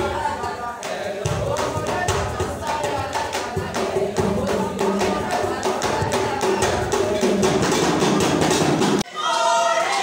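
Music with fast, dense percussion (drums and tambourine-like rattles) under singing or pitched instruments. It cuts off suddenly about nine seconds in, and a voice follows.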